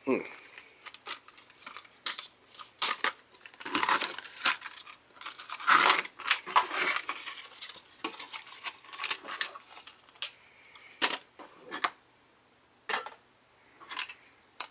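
Stiff clear plastic blister packaging being handled and pulled apart: irregular crinkles, crackles and small clicks.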